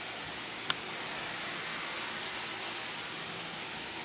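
Steam cleaner hissing steadily through its towel-wrapped floor brush as the brush is slid slowly over a mattress, with one sharp click just under a second in.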